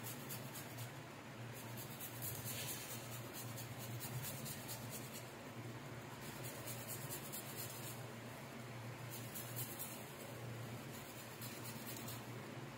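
Fresh ginger being grated on a flat steel hand grater: a soft, rapid scraping rasp, stroke after stroke, in two runs with a pause of a few seconds around the middle. A steady low hum lies underneath.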